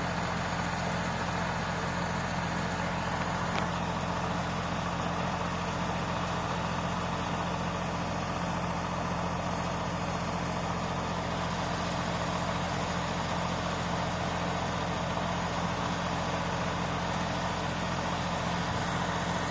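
Heavy engine of construction machinery or a truck idling steadily with an even hum.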